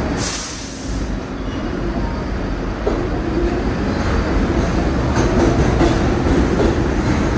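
New York City Subway R62 train on the 3 local running along the platform and picking up speed as it pulls out. Its wheels and traction motors make a steady rumble that grows louder, with a few rail-joint clicks in the second half and a brief hiss right at the start.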